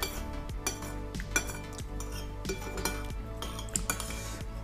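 Spoon clinking and scraping against a bowl of soto while eating: light, irregular clinks every half second or so, over background music.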